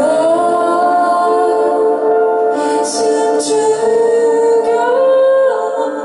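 Live music: a woman singing long held notes of a slow song while playing sustained chords on an electric stage keyboard.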